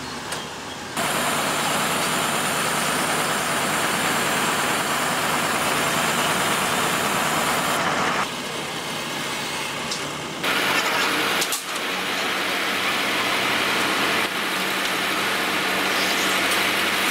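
Engine and hydraulics of a tree-spade transplanting machine running steadily, the sound jumping abruptly in level several times as the shots change.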